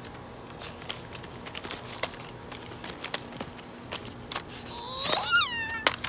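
Scattered soft crunches and scrapes as a plastic toy loader is shoved through snow, then, about five seconds in, a young child's loud, high-pitched whining squeal that falls in pitch.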